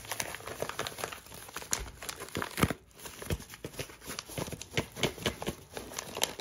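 Plastic shipping packaging, a yellow poly mailer and a clear plastic bag, crinkling and rustling as it is pulled open and handled. It makes many quick, irregular crackles.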